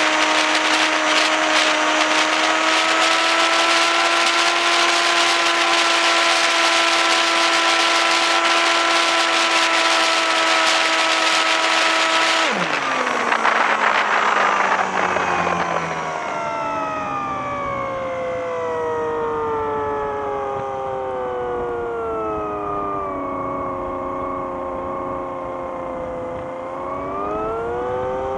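Electric motor and propeller of a small flying-wing model plane, heard from on board. It runs at a steady high throttle with a whining tone over a strong hiss. About twelve seconds in the power drops sharply. The whine then sinks slowly in pitch and rises again briefly near the end.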